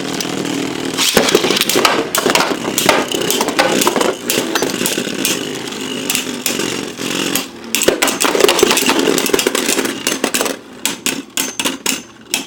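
Beyblade Burst tops (Revive Phoenix and Bloody Longinus) spinning and clashing in a plastic stadium: a continuous whirring scrape with rapid clicking impacts. The hits thin out to scattered clicks near the end.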